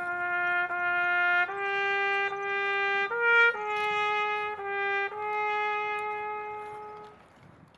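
Solo trumpet playing a slow melody of long held notes, with one short higher note in the middle; the last note is held and dies away about seven seconds in.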